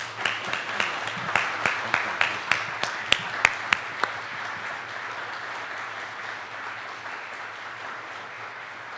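Audience applauding. For the first four seconds one person claps loudly and close by, about three claps a second, over the steady applause, which then thins out slowly.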